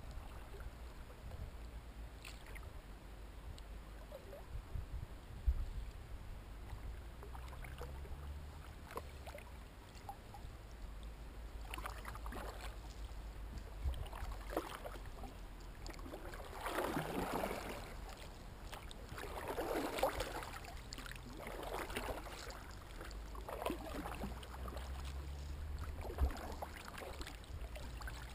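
Kayak paddle strokes through calm water. From about halfway in there is a swell of swishing and splashing every two to three seconds, over a low steady rumble.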